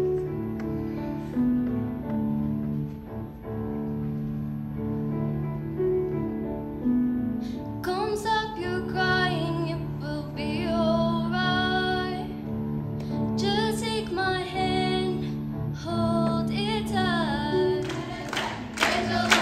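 Piano plays held chords as a choir-concert accompaniment. About eight seconds in, a girl's solo voice comes in over it, singing a single melody with wavering held notes.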